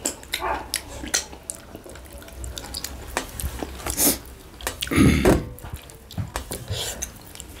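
Fingers being licked and sucked clean after eating by hand: a string of small wet smacking clicks, with a louder, longer one about five seconds in.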